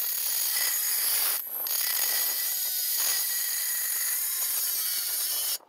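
Cordless angle grinder with a thin cutoff wheel cutting through 16-gauge sheet steel held in a vise: a steady high whine and hiss that dips briefly about one and a half seconds in, then stops suddenly near the end.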